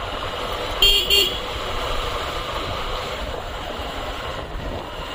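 A horn sounds two short beeps in quick succession about a second in. Under it runs steady riding noise from the motorcycle, with wind on the microphone.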